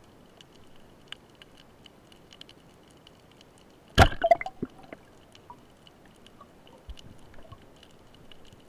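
A speargun fired underwater about four seconds in: one sharp, loud crack followed by about a second of rattling as the spear strikes into the rock crevice. Faint scattered underwater ticking and crackling fill the rest.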